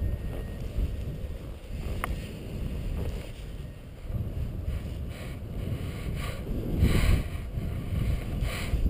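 Wind buffeting the camera's microphone: a low, rumbling roar that swells in gusts about seven seconds in and again near the end, with a single sharp click about two seconds in.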